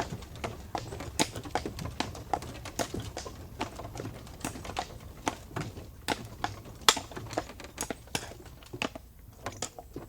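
Hooves of a four-horse team pulling a stagecoach, clip-clopping in an uneven clatter of sharp strikes on a hard surface over a low rumble. The clatter thins out near the end.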